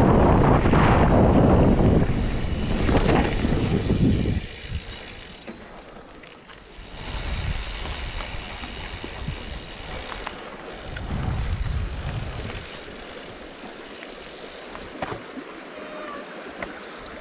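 Wind buffeting the action camera's microphone on a mountain bike moving at speed. About four seconds in it drops off sharply to quieter, intermittent gusts, with a rushing stream near the end.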